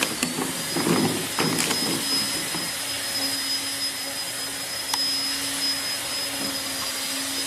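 Steady mechanical whir with a constant thin high whine, joined by a low steady hum after about two seconds. A couple of short low vocal sounds come in the first two seconds.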